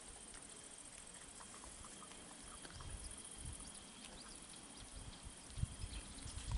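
Quiet dusk countryside ambience: a faint steady high insect trill with scattered small ticks, and low muffled knocks and rustles that grow louder in the last second or so.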